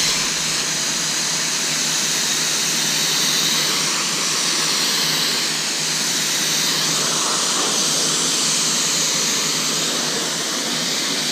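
Kranzle 1122TST electric pressure washer spraying a 40-degree fan jet of water onto a car, a loud, steady hiss that does not let up.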